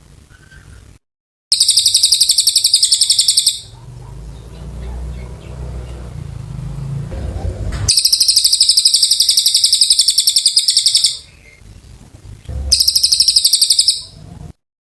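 Cililin bird singing its long, fast, rattling trill three times, each burst of rapidly repeated high notes lasting one to three seconds, the longest about three seconds. A low rumble fills the gap between the first two trills.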